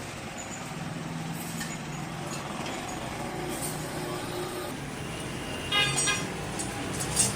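Steady rumble of motor traffic, with two short, sharp ringing sounds near the end.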